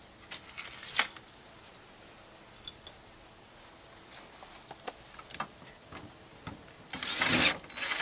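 Scattered light clicks and knocks from handling a tape measure and a steel gate brace against a wooden gate, with a brief louder burst of noise near the end as the brace is set in place for screwing.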